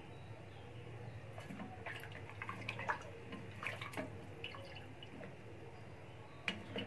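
Boiled beef pieces being stirred and lifted with a ladle in broth in a pressure cooker: small splashes and drips of broth, with scattered light clicks of the ladle against the pot.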